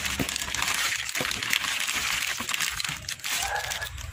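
Plastic sauce sachets and snack packets crinkling and rustling as a hand rummages through them in a cardboard box.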